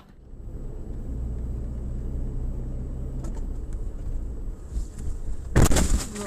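Steady low rumble of a car's engine and road noise heard from inside the cabin, then a loud, short crash about five and a half seconds in as it collides with another car.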